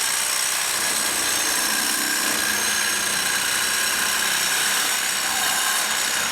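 A power tool cutting through steel exhaust pipe, running steadily with a high-pitched whine.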